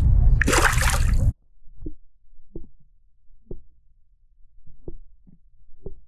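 A largemouth bass splashing at the surface beside a kayak, then an abrupt switch about a second in to muffled underwater audio: a low rumble with dull knocks roughly once a second.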